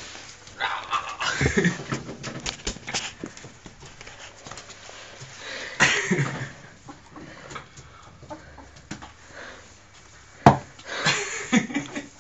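Ferrets dooking, the soft clucking chuckle of excited play, in several bursts, mixed with the scrape and knocks of a broom head pushed over carpet. A sharp knock comes near the end.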